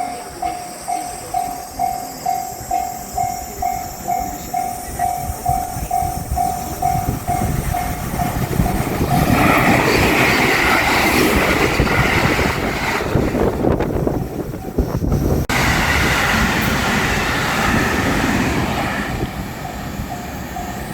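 Japanese level-crossing warning bell clanging steadily at about two strikes a second. About nine seconds in, a JR Shikoku 5000-series Marine Liner electric train passes over the crossing, its wheels rumbling and clattering on the rails and drowning the bell for about ten seconds before the train fades and the bell is heard faintly again.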